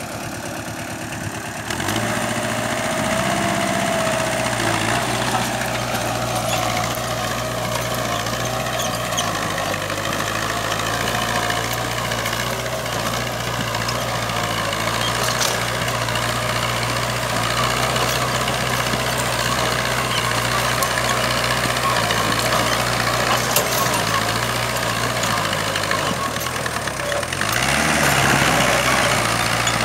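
VST Mitsubishi 27 hp compact tractor's diesel engine running steadily. It gets louder about two seconds in, and near the end the note dips, rises again and grows louder.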